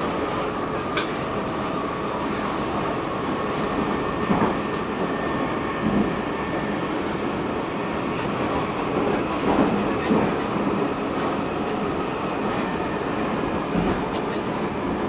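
Stockholm metro train running, heard from inside the carriage: a steady rumble of wheels on rail under a faint motor whine, with a few scattered knocks and clicks from the track.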